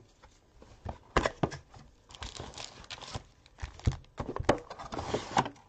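A cardboard trading-card box being opened and handled by hand: several sharp knocks and taps of the box, with two stretches of tearing, crinkling packaging.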